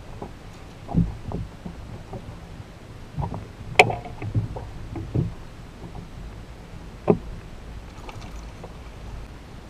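Knocks and thumps of gear against a fishing boat's hull and deck as a landing net is picked up and a fish is netted, about seven hits in all, the loudest a sharp clack about four seconds in.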